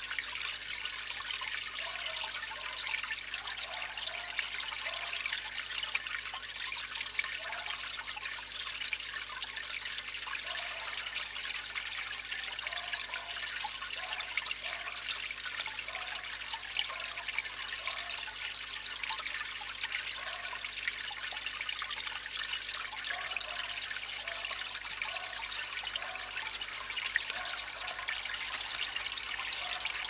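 Water trickling steadily, with soft gurgles every half second to second.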